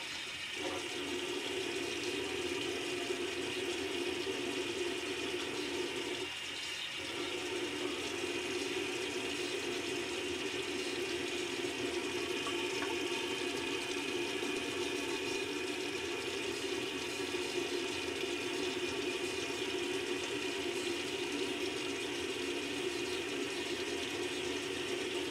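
Running water, a steady rush that briefly dips about six seconds in.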